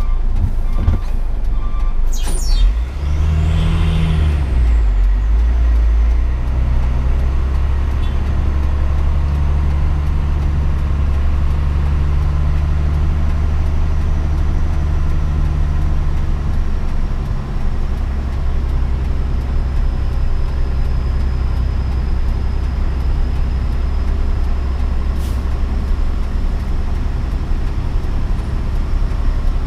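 Hino 500 truck's diesel engine running steadily through its Cung Sulawesi-style exhaust. A few sharp clicks come in the first couple of seconds, and a brief rising-then-falling whine about three to five seconds in.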